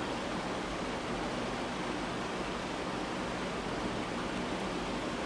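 Steady, even hiss of background noise with no distinct event: room tone and recording noise.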